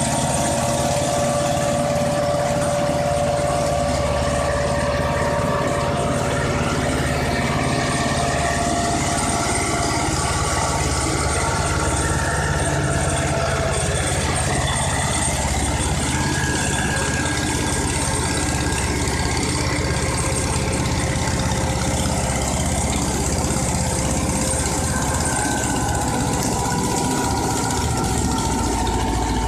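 Ursus C-330M tractor's two-cylinder air-cooled diesel running steadily at full throttle, labouring under load on a steep uphill climb.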